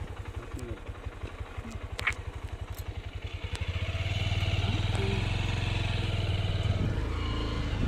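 An engine running with a fast, even low pulse, becoming louder and steadier about four seconds in.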